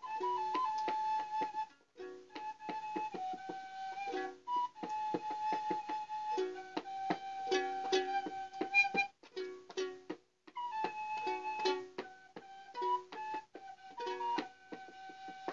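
Improvised free-jazz music: a plucked string instrument picks repeated chords under a high melody line of long held notes that step up and down, with two short breaks in the playing.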